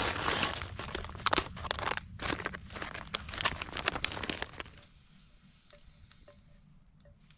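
Close crinkling and rustling full of sharp crackles for about four and a half seconds, then only a few faint clicks.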